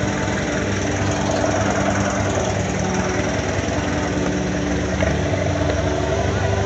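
Farm tractor's diesel engine running steadily while stuck in deep mud with a loaded trailer hitched, a constant engine note with no clear revving.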